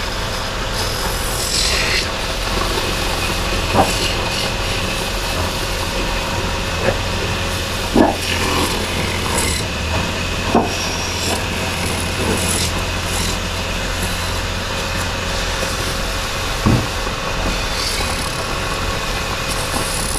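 Wood lathe running steadily while a hand-held turning chisel scrapes and cuts a spinning wooden charpai leg, with a few sharp knocks.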